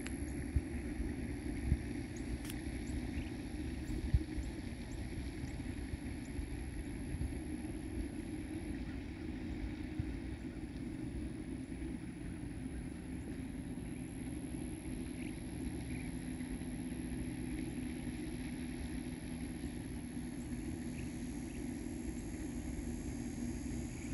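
Steady low outdoor background rumble and hum, with a few brief sharp knocks in the first few seconds.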